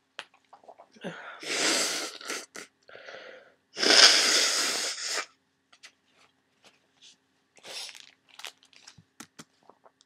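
A person with a heavy head cold sneezing twice, nearly three seconds apart, the second sneeze the loudest, followed by small clicks and a short breath.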